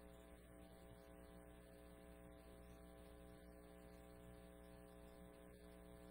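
Near silence: a faint, steady electrical mains hum with many evenly spaced overtones in the recording.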